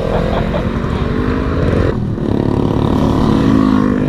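Motorcycle engine pulling under way, its pitch climbing, dipping briefly about two seconds in and climbing again, with wind rumbling on the microphone.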